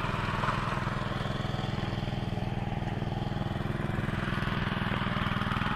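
Small engine of a walk-behind power tiller running steadily under load as it tills the soil. It gives a constant drone with a fast, even firing pulse.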